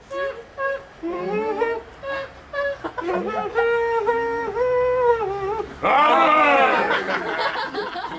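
Wordless vocal noises made by a person: short sliding whoops, then a long held note from about three seconds in, then from about six seconds a loud, rapid, high warbling cry.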